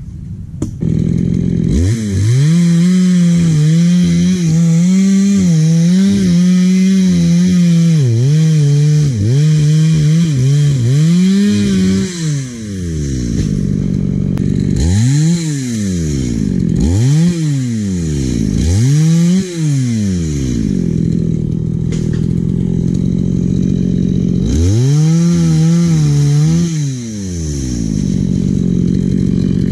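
Chainsaw engine running hard: it comes in loud about a second and a half in and is held at high revs for some ten seconds. It then drops back to idle and is revved up and down in sharp blips, with another high run near the end.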